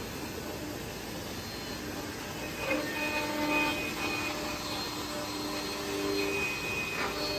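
CNC woodworking drilling and milling machine running, with a steady noise under whining spindle tones that come and go. There is a short knock about two and a half seconds in and another near the end.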